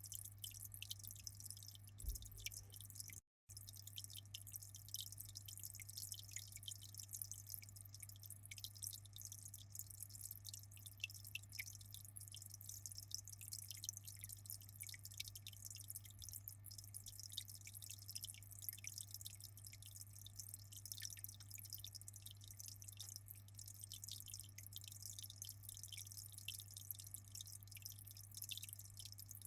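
Aquarium water dripping and trickling in a constant fine patter over a steady low hum. The sound cuts out completely for a moment about three seconds in.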